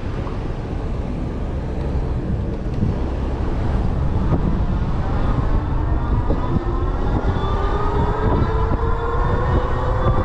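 Electric bike hub motor whining under power as the bike pulls away from a stop, the whine rising steadily in pitch with speed from about four seconds in. Wind rumble on the microphone runs underneath.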